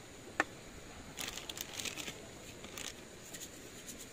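Small plastic food container being handled: a sharp click of its lid about half a second in, then about two seconds of light crinkling and rattling.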